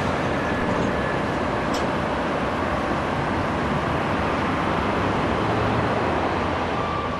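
Sheffield Supertram Siemens-Duewag articulated tram running on street track, heard as a steady noise mixed with city traffic. A faint steady high tone comes in near the end.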